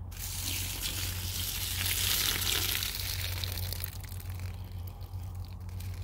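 Water pouring out of an upturned LaCrosse knee-high rubber boot and splashing onto dry leaf litter. It is heaviest in the first half and thins out after about three seconds.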